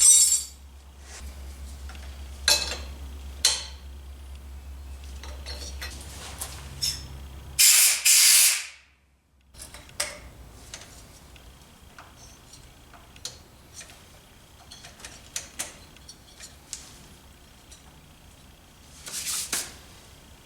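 Metal hand tools clinking and clicking against the moped during reassembly, with short hissing bursts: a loud one about halfway through and a shorter one near the end.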